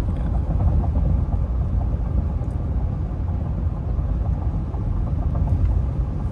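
Steady low rumble of road and tyre noise heard inside the cab of a 2022 Ford F-150 with the 2.7 EcoBoost, cruising at 70 mph.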